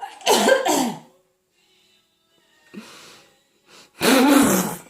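Loud non-speech vocal outbursts from a voice: two long, breathy cries, one just after the start and one near the end, with a fainter one in between.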